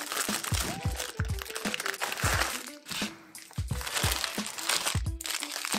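Plastic noodle packaging crinkling and tearing as a bag of yakisoba is opened by hand and the noodle packs are pulled out, over background music with a steady beat.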